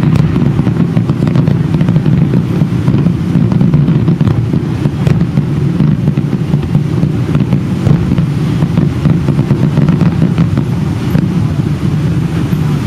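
Aerial fireworks bursting in quick succession: a continuous low rumble of overlapping booms with many sharp cracks and crackles on top.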